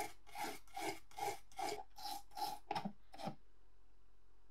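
A stiff brush scrubbing rust off a small wet metal part from an antique electric iron, in about nine quick rasping strokes, roughly two a second, that stop a little over three seconds in.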